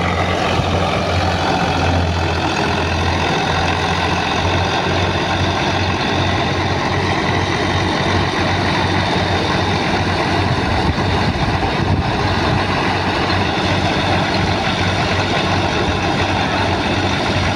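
Al-Ghazi tractor's diesel engine running steadily under load, driving a wheat thresher through its PTO shaft, with the thresher's spinning drum adding a steady whir over the engine's low hum.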